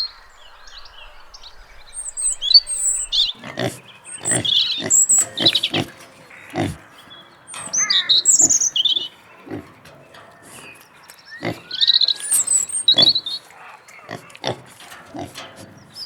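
Wild boar grunting in short, repeated bursts, beginning a few seconds in, with birds chirping over it.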